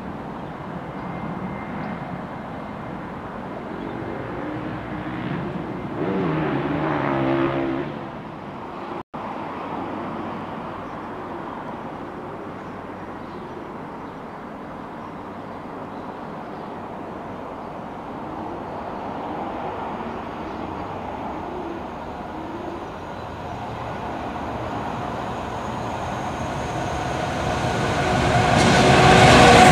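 Irish Rail 201 class diesel-electric locomotive (EMD 12-710 engine) hauling a passenger train. First its train is heard moving away. After a break, the locomotive approaches and its engine noise grows steadily louder over the last several seconds as it nears.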